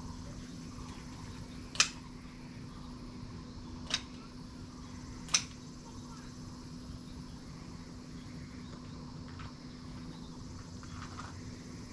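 Steady low hum with even background noise, broken by three short sharp clicks, about two, four and five seconds in.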